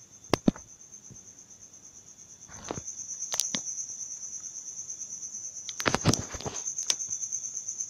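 Crickets trilling steadily at a high pitch, with a few sharp clicks scattered through, the loudest about half a second in and a cluster near six seconds in.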